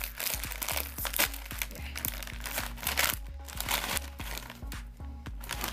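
Crinkling of a plastic snack wrapper being handled, as a sweet potato snack is opened. Background music with a steady beat plays underneath.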